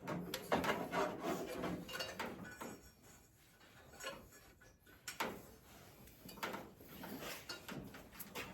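Rubber drive belt being worked by hand onto the pulleys of a car engine that is not running, making irregular rubbing and scraping sounds in several short bouts.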